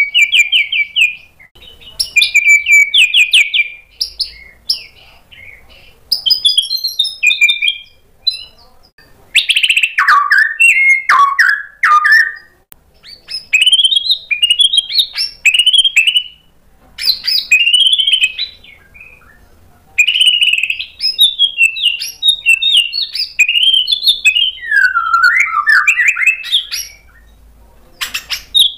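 Caged white-rumped shama (murai batu) singing loudly in varied phrases of whistles, fast trills and rising and falling sweeps, each lasting one to several seconds with short pauses between them. A quick run of sharp clicks comes near the end.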